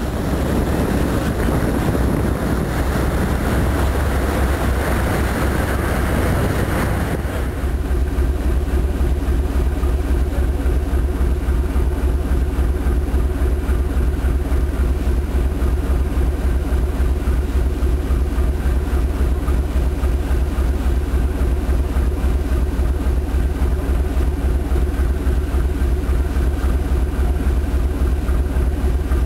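A tugboat's diesel engine running steadily under way, a low even throb heard on board over the churning propeller wash. For the first seven seconds a noisier mix of engine and water is heard instead, which cuts off abruptly.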